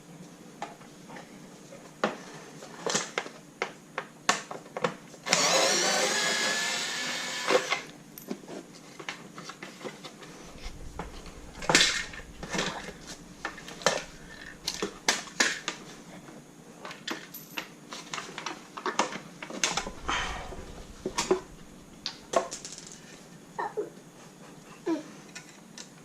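Ryobi QuickTurn electric screwdriver running once for about two and a half seconds, about five seconds in, among many sharp clicks and knocks of fasteners and tools being handled.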